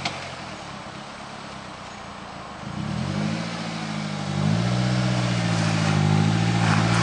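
Suzuki Jimny JB43's 1.3-litre four-cylinder petrol engine pulling under load while the 4x4 crawls through a steep rutted hollow. It runs low and quiet for the first couple of seconds, then the revs rise in two steps and are held higher as it climbs.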